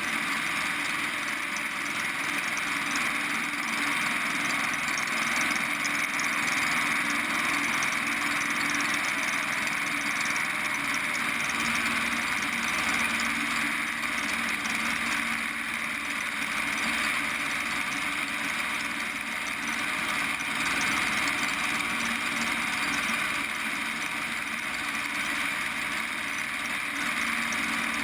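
Preceptor Ultra Pup ultralight's engine and propeller running steadily in cruise flight, mixed with rushing airflow over the microphone fixed outside on the wing.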